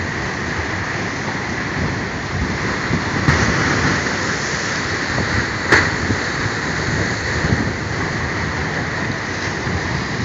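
Rough sea surf: waves breaking and washing over rocks and concrete pool walls, making a loud, steady rush of water. There are two brief sharp knocks, about three seconds and five and a half seconds in.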